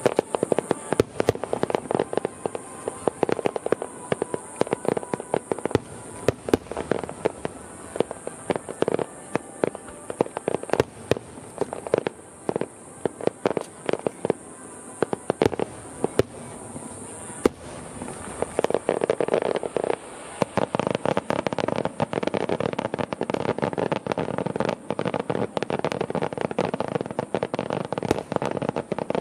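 Fireworks display: a rapid, unbroken series of aerial shell bursts, sharp bangs overlapping one another with crackling. From about two-thirds of the way in, the bangs thicken into a denser, nearly continuous crackle.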